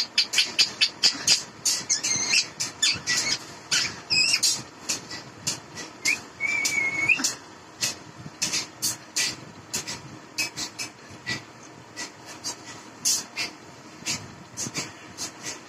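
Caged rose-ringed parakeet making a string of sharp clicks and taps, thickest in the first few seconds, with short whistled notes; the clearest is a wavering whistle about six seconds in that lasts just over a second.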